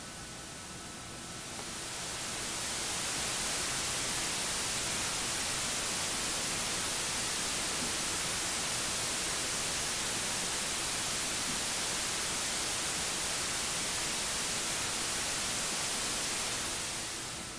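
Steady hiss of artificial background noise, raised in the room to test the robot's speech recognition. It swells over the first couple of seconds, holds steady, and falls away near the end.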